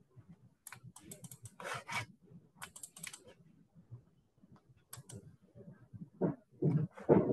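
Typing on a computer keyboard: irregular clusters of key clicks, then a few louder, duller knocks near the end.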